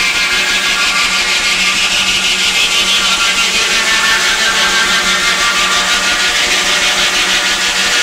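Belt-driven Frick sawmill running off a 1923 Frick Eclipse steam engine: the circular saw whines steadily as the log on the carriage is fed into it, its pitch sagging a little midway.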